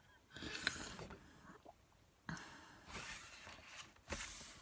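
Pages of a coloring book being turned by hand: three soft papery swishes, about half a second in, a little past two seconds, and near the end.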